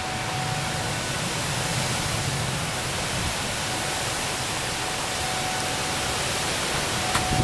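Steady rushing noise of a thunderstorm's rain and wind, with the faint steady tone of a distant tornado siren fading out and coming back as it rotates.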